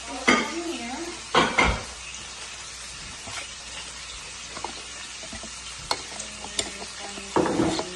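Hot huckleberry syrup being poured from a pot into a glass mason jar: a steady hiss with several clanks and scrapes of the pot and utensil against the jar, the loudest near the start, about a second and a half in, and near the end.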